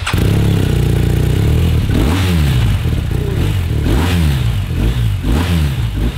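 BMW R1250GS's 1,254 cc boxer twin firing up on the push-button starter and catching at once, idling for a couple of seconds, then revved in quick blips about once a second, the pitch rising and falling with each.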